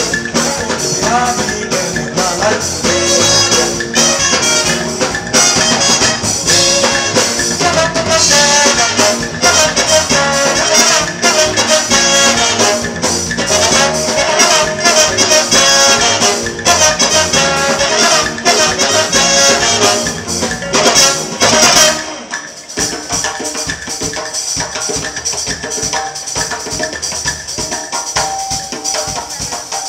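Live band music led by a horn section of trombone, trumpets and saxophones over electric guitars, bass and hand drums. About two-thirds of the way in the full band drops away suddenly, leaving quieter drums and percussion playing on.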